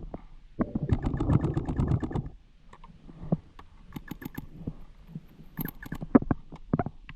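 Paintball marker firing in a rapid string, about ten shots a second for nearly two seconds, then short bursts of shots about halfway through and near the end.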